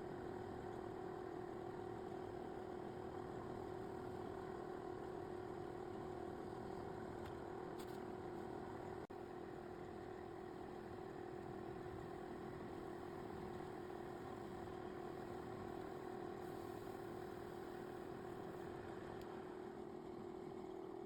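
Restored lathe's electric motor running at a steady speed with a constant hum, briefly cut off about nine seconds in.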